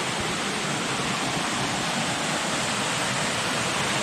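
Creek water rushing over small rock cascades: a steady, even rush of water.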